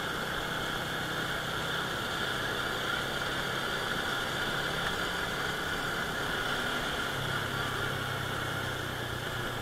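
Small motorcycle engine running steadily while riding, a low hum that drops slightly in pitch about seven seconds in as the rider eases off, under a steady hiss.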